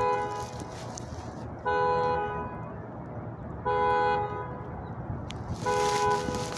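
Car alarm sounding the car's horn in short honks, one about every two seconds, four times over.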